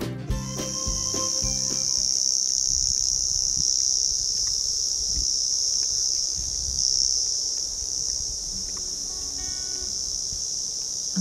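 Insects buzzing: one steady, high-pitched drone that does not pulse or break, while the last notes of a music track die away in the first two seconds.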